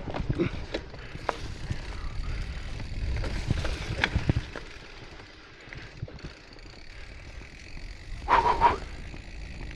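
Mountain bike rolling along a forest trail: a steady low rumble of tyres and wind with sharp clicks and rattles from the bike. A brief loud call sounds near the end.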